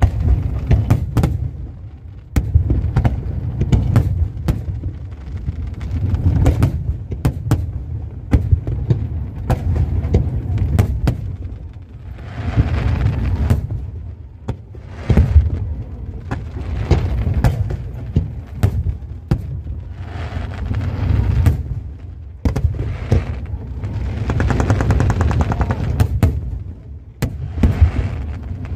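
Aerial fireworks going off in quick succession: sharp bangs and crackles over deep booms, with stretches of dense crackling about halfway through and again near the end.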